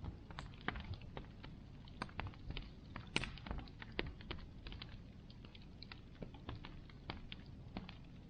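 Bonfire crackling: irregular sharp pops and snaps of burning wood over a low rumble, with one louder pop about three seconds in.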